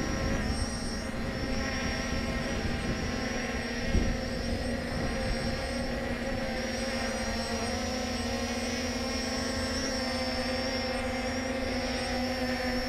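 Brushless quadcopter (Ao Sen Ma CG035) motors and propellers humming steadily as it hovers and manoeuvres, the pitch wavering slightly, with wind rumbling on the microphone and a single thump about four seconds in.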